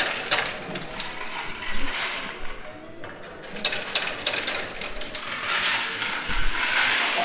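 Coins clinking and clattering in a coin pusher machine as they are fed in and pushed along the shelf, in a string of sharp metallic clicks. Near the end the clicks thicken into a denser rattle.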